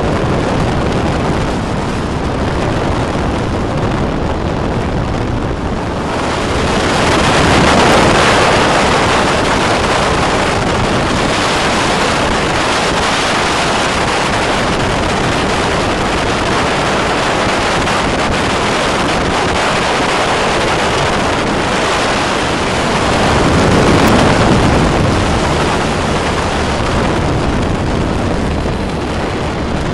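Weight-shift microlight trike in flight: its engine drones steadily under heavy wind rush on the microphone, swelling twice, about seven and twenty-three seconds in.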